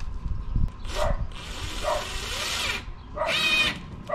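A dog whining and yipping in short bursts, with a high-pitched whine about three seconds in, mixed with brief sounds of a cordless drill at work.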